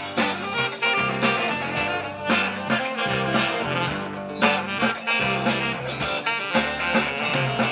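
Live rock band playing an instrumental passage on electric guitars, electric bass, drum kit and saxophone, with steady drum hits.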